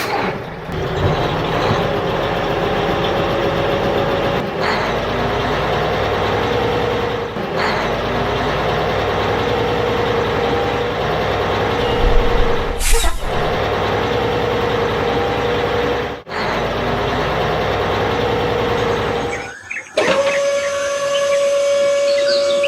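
A motor running steadily with a constant whine, briefly cut off several times. Near the end it gives way to a different, cleaner steady tone.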